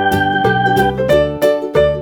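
Background music: a keyboard melody with held notes over a steady beat.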